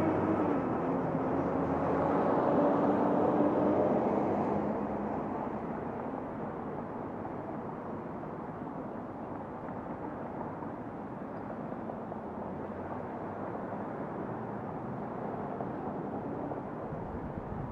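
A car being driven, with steady engine and tyre noise. It is louder for the first four seconds or so, with a low hum that dips slightly in pitch, then settles to a quieter, even rumble.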